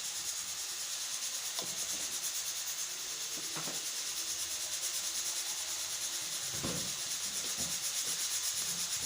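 Food frying in a pan with a steady sizzle, while a spatula scrapes and stirs it, giving a few soft knocks against the pan.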